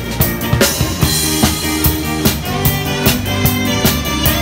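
Live band playing an upbeat rock/soul number, led by a drum kit keeping a driving beat on bass drum and snare, with a crash cymbal about a second in, over held notes from guitar and other instruments.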